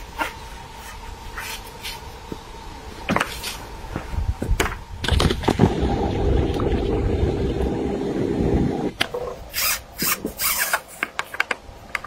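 A hooked fish splashing at the surface as it is played on a fishing pole and swung out of the water, mixed with rough rumbling and rubbing handling noise for several seconds. Near the end come a rapid run of sharp clicks and rustles as the fish comes up out of the water through dry reeds.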